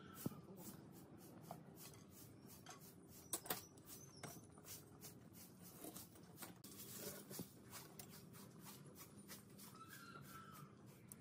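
Faint marking-out sounds: a steel rule and square set down and shifted on a wooden board with a few sharp metal-on-wood clicks, and a pen drawing lines along the rule.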